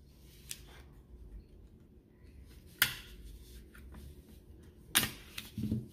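Small package of black paper and tape being cut and slit open with a pocket multi-tool: quiet scraping and rustling, with two sharp clicks, one about halfway through and one near the end.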